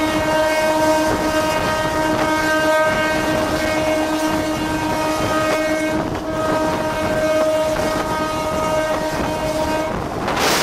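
A locomotive horn sounds one steady note, held with a short break about six seconds in, and cuts off near the end. Under it runs the rumble and clatter of coaches on the rails at speed. A rush of broad noise comes at the very end.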